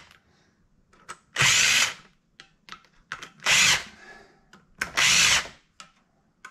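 Power drill/driver with an Allen bit spinning in three short bursts about a second and a half apart, each about half a second long, with faint clicks between. It is running the clutch lockout's Allen bolts down a little at a time so they go in evenly against the clutch springs without cross-threading.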